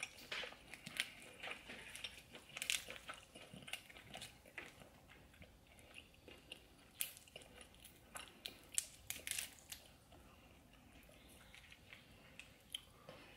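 Close-miked chewing and biting of a buttery seafood boil: irregular sharp, crisp mouth clicks and crunches, thinning out over the last few seconds.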